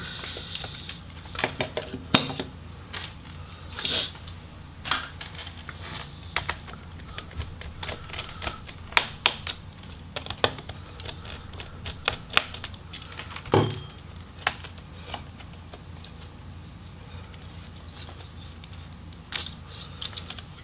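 Irregular small clicks and taps of a Phillips screwdriver on screws and plastic laptop parts as the subwoofer is unscrewed and pried out of a Lenovo Y50-70's case, with one louder knock about thirteen seconds in. A faint steady low hum runs underneath.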